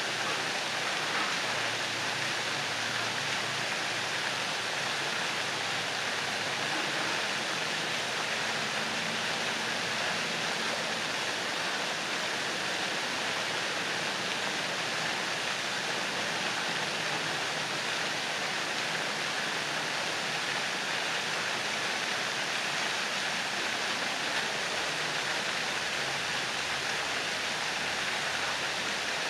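Ornamental pond fountains spraying jets of water that fall back onto the pond surface: a steady, even rush of splashing water.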